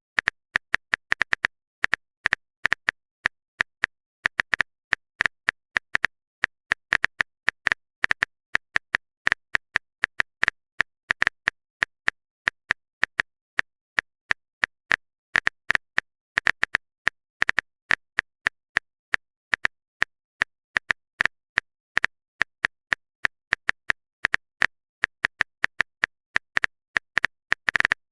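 Phone keyboard typing sound effect: a run of short, sharp clicks at an uneven pace of a few a second, with dead silence between them.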